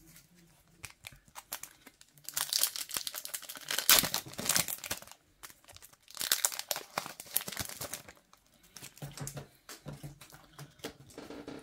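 Foil wrapper of a Star Wars trading-card pack crinkling and tearing as it is ripped open, in two spells of crackling, loudest about four seconds in, followed by quieter rustling as the cards are handled.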